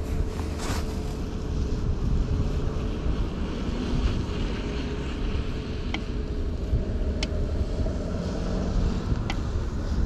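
Wind rumbling on a chest-mounted action camera's microphone over steady traffic noise, with a vehicle's hum fading away in the first few seconds. A few light clicks come later.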